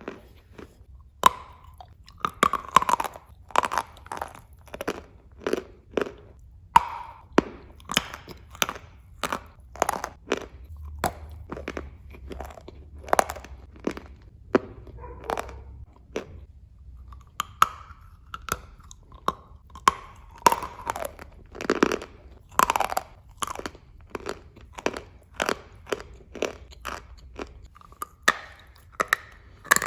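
Close-miked biting and chewing of dry edible clay and chalk pieces: a long run of sharp, irregular crunches, about one to three a second.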